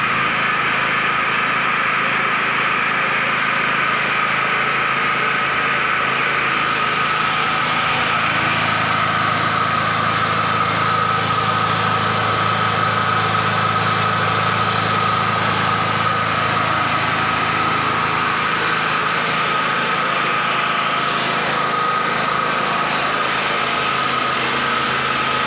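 XLNT-3500E portable petrol generator running steadily just after starting: an even engine drone with a constant high whine over it. The low hum swells for about ten seconds in the middle.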